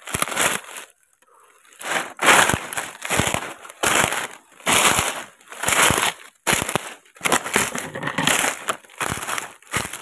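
Footsteps crunching through dry leaf litter and brush, a step roughly every half to three-quarters of a second, with a brief pause about a second in.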